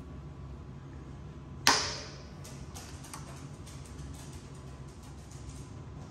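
A sharp metallic crack about two seconds in as a tight Torx rotor bolt breaks loose under a hand driver, followed by a run of faint ticks as the driver is turned.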